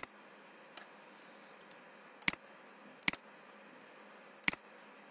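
Computer mouse clicks: four sharp single clicks spaced about a second apart, with a couple of fainter ticks between them.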